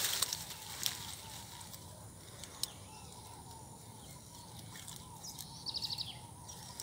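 Faint outdoor ambience: a steady low hiss with a brief rustle right at the start and a few scattered clicks. A little before the end comes a short, quick run of about eight high ticks, an animal call.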